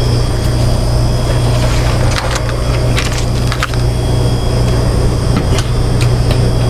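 Steady low machine hum, with a few sharp clicks and rattles of plastic Quanti-Trays being pulled off a metal incubator shelf about two to four seconds in.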